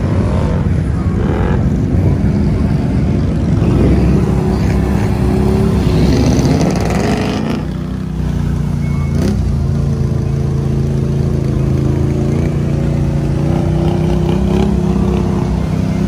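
Off-road vehicle engine running loud, revving up a few seconds in, easing off briefly near the middle, then holding a steady drone.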